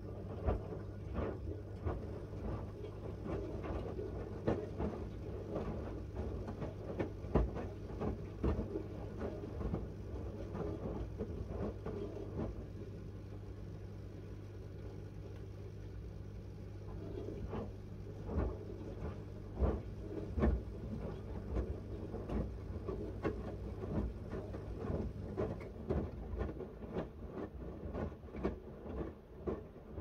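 Miele W1 front-loading washing machine in its wash phase, the drum tumbling the wet load: irregular knocks and splashes of laundry and water falling over a steady low hum, with a quieter stretch about halfway through.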